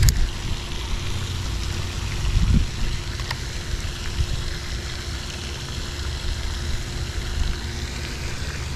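Wind rumbling and buffeting on the microphone over a steady background hiss, with one faint click about three seconds in.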